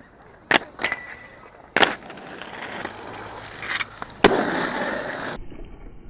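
Roller skates knocking down onto a metal rail a few times, then a rough grinding scrape. About four seconds in comes a loud hard impact and a sliding scrape, which cuts off suddenly and gives way to quieter wheel rolling.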